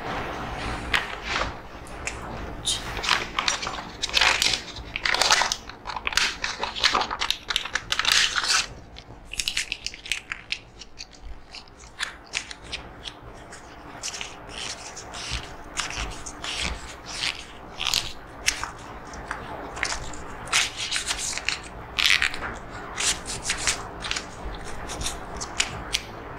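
Marker pen squeaking and scratching on a whiteboard in quick, irregular strokes as a line of text is written. The strokes thin out for a few seconds about a third of the way through, then pick up again.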